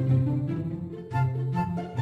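Background music with a plucked and bowed string bass line and a melody on top; the music dips briefly about a second in.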